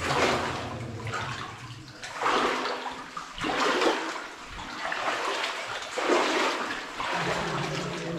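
Flood water in a mine adit swishing and sloshing in regular surges, about one a second, as a person wades through it.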